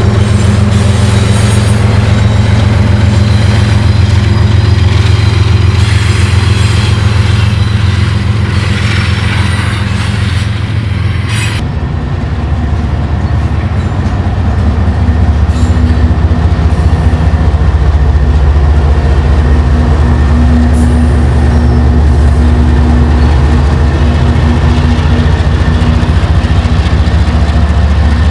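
A GE ES44AC locomotive's GEVO-12 diesel working hard as a distributed power unit, passing with loud engine and wheel noise. About eleven seconds in it cuts suddenly to another ES44AC rumbling steadily at low throttle, with a low, even engine note.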